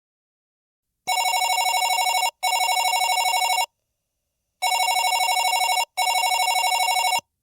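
Unicom 62172 electronic door chime sounding a fast warbling electronic trill in a ring-ring pattern, played twice: two rings about a second long close together, a pause, then two more.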